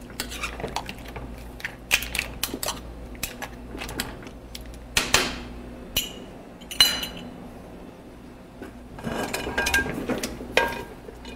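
Metal spoon, pan and lid clinking and knocking on a stovetop while butter is added to a pan of bouillabaisse, including a ringing clink about seven seconds in, over a steady low hum.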